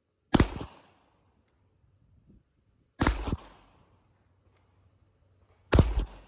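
Three handgun shots, spaced roughly two and a half to three seconds apart, each a sharp crack with a short ringing echo.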